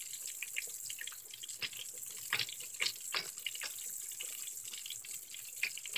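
Coated red snapper fillets deep-frying in a pot of hot oil: a steady sizzle with scattered crackling pops.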